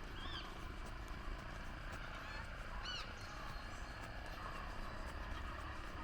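Small birds calling over a steady low background rumble of outdoor ambience: two short arched chirps stand out, one just after the start and one about three seconds in, with fainter calls between them.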